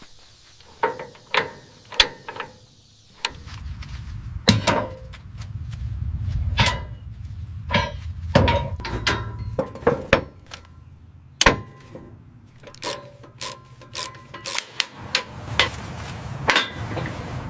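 Workshop sounds: an irregular string of knocks, clanks and clicks of tools working on metal, over a low steady hum that starts about three seconds in.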